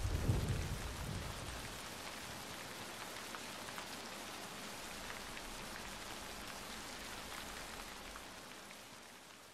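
Steady rain falling, with scattered drop ticks; the tail of a low thunder rumble dies away in the first couple of seconds, and the rain fades out near the end.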